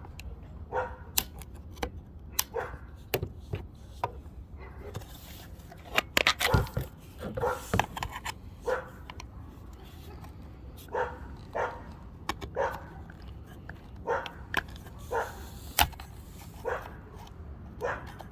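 A dog barking over and over, a short bark every second or so. There are sharp clicks and knocks from tools, with a loud cluster about six seconds in.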